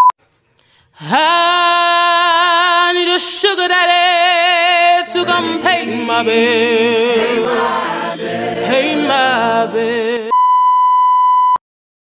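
A single voice sings one long, high note with wide vibrato, and other voices join in harmony about halfway through. The singing cuts off and a steady censor beep sounds for about a second near the end.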